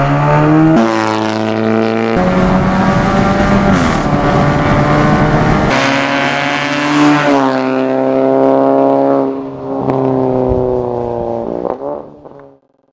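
Audi A3 1.4 TFSI turbocharged four-cylinder with an Armytrix valvetronic aftermarket exhaust, driven hard at high revs. Its pitch steps down at gear changes early on, then falls away and fades out shortly before the end.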